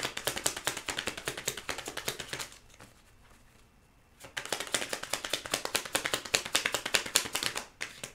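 Tarot cards being shuffled by hand: rapid, dense clicking and flicking of the cards, in two bouts with a pause of about a second and a half, about two and a half seconds in.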